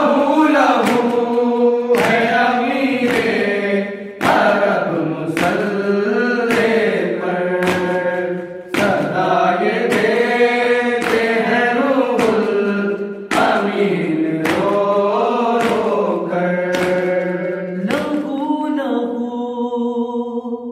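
A group of men chanting a nauha, a Shia mourning lament, in unison without instruments, keeping time with hand slaps of matam about once a second. The chanting breaks off just before the end.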